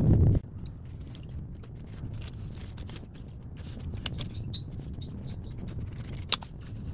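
Hand-tool scraping and cutting on an air-conditioner radiator's aluminium fins and copper tubing, with scattered sharp metal clicks and one louder click near the end. A loud low rumbling noise cuts off abruptly about half a second in.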